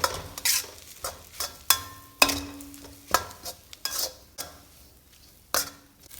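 Metal spatula knocking and scraping against a pan while stir-frying egg fried rice, about a dozen sharp clanks, some leaving a short metallic ring, over a faint sizzle.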